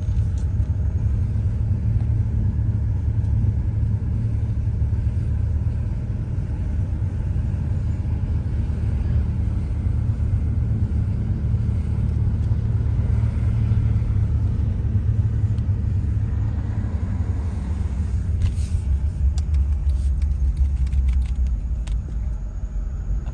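Steady low road rumble of a car driving, heard from inside the cabin, with a few faint ticks near the end.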